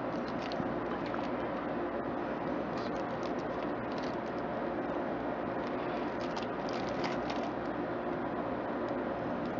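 Steady low hum with scattered faint clicks and light rattles of small computer parts being handled.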